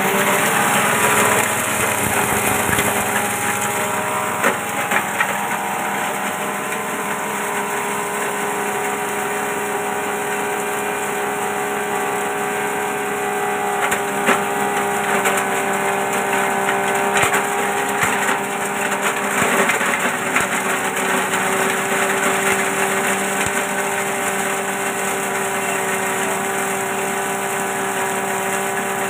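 Small petrol engine running at a steady high speed, driving the rotor of a multi-purpose chopper-shredder, with a steady whirring hum. Short cracks and clatters come through now and then as plant material is fed in and chopped.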